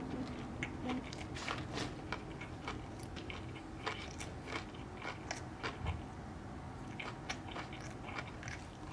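A person biting into and chewing a crispy panko-breaded fish sandwich, with small irregular crunches throughout.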